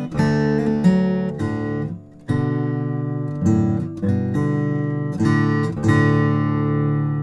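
Boucher SG-21-G OM acoustic guitar, bubinga-bodied with a torrefied Adirondack red spruce top, played solo: plucked notes and chords ringing out, with a brief drop about two seconds in before the next chord comes in.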